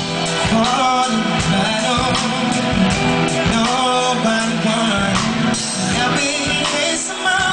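Male R&B singer singing live into a handheld microphone, his voice bending and sliding in melismatic runs over a live band with drum hits and sustained instrument chords.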